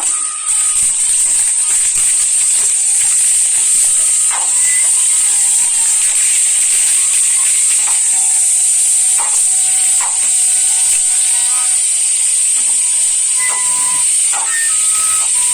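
Ground fireworks spraying sparks with a steady, loud hiss. Thin held whistling tones come and go above it.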